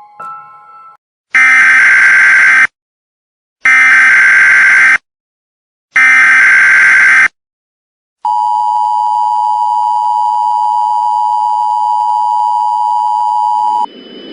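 Emergency Alert System signalling, loud: three SAME header data bursts of about a second and a half each, with a second of silence between them. These are followed by the EAS two-tone attention signal (853 and 960 Hz), held steady for about five and a half seconds and then cutting off, marking the start of an emergency alert.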